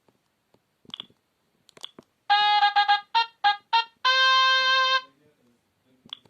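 Sony Ericsson K750i phone playing one of its built-in sound effects through its speaker: a short synthesized jingle of about six quick notes ending on a held note of about a second. It is preceded by a couple of faint clicks.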